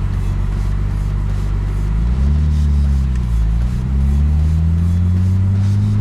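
Car engine accelerating. Its pitch climbs about two seconds in, drops briefly at a gear change, then climbs again.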